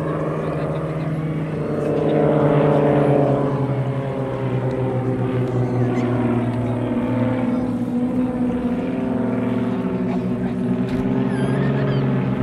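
Several single-engine piston aerobatic propeller planes flying in formation overhead, their engines droning together, loudest about two to three seconds in, with the engine note shifting in pitch as they manoeuvre.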